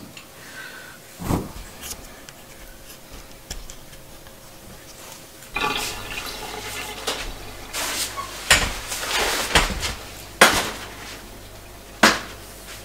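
Water running into a stainless steel kitchen sink, with a few sharp metal clinks as a mesh strainer is handled and set in it.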